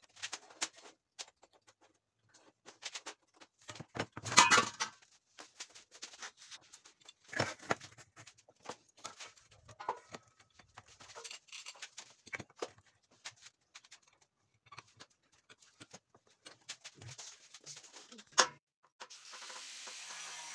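Scattered clicks and knocks of tools and metal parts being handled on a workbench. Near the end an angle grinder starts and runs steadily, cutting metal.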